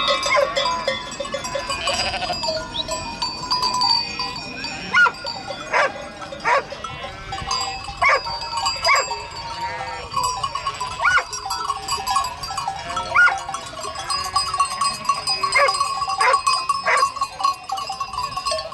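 A large flock of sheep, with scattered bleats rising above a continual clanking and ringing of many bells.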